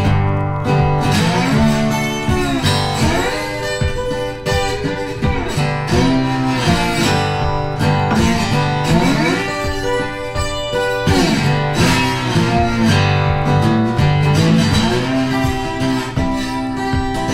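Soundtrack music led by guitar, playing steadily throughout.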